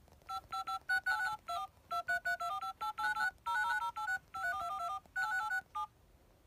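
Telephone keypad (DTMF) tones: quick runs of short two-tone beeps in rhythmic phrases with brief gaps, changing pitch from beep to beep, stopping shortly before the end.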